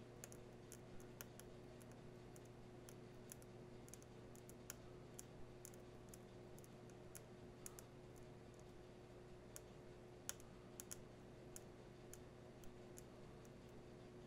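Near silence: a steady low hum with faint, irregular small clicks, roughly one or two a second.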